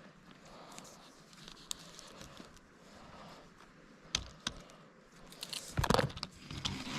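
Close rustling and crinkling handling noise with scattered sharp clicks and knocks; the loudest is a cluster of knocks and rustling about six seconds in.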